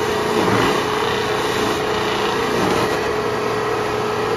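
Wood lathe running at speed with a cloth buffing wheel spinning on its spindle: a steady motor hum with one steady tone and the hiss of the wheel, as a turned wooden piece is held against it for the carnauba wax buff.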